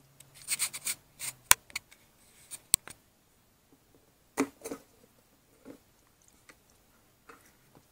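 Hands handling a plastic tarantula enclosure: a scatter of sharp plastic clicks and short rattles from the lid and its fittings, the sharpest snaps about a second and a half and nearly three seconds in.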